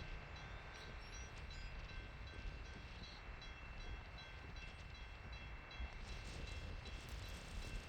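Wind buffeting the microphone with a steady low rumble, over the faint sound of a distant freight train, the BNSF coal train.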